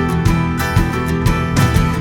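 Background music: a strummed acoustic guitar with a steady beat, no singing.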